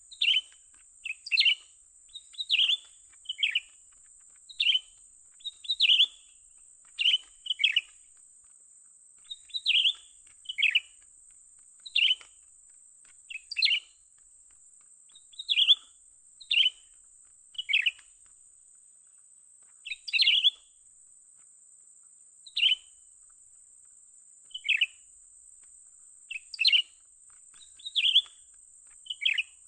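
Cucak ranting bird calls: short, sharp chirps repeated about every one to two seconds, with a few longer pauses, over a steady thin high hiss.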